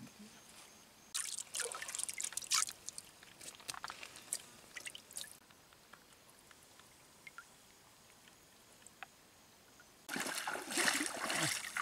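Water trickling and splashing in shallow pond water as hands scoop it up and let it run out, in irregular bursts; after a quieter stretch, louder splashing starts near the end.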